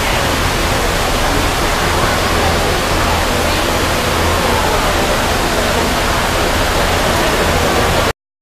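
Steady loud rushing noise with a constant low hum, with faint voices in the background; it cuts out briefly near the end.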